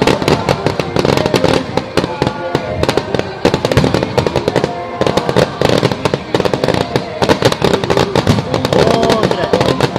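Fireworks display: aerial shells bursting in rapid, nearly continuous succession, a dense run of bangs and crackles.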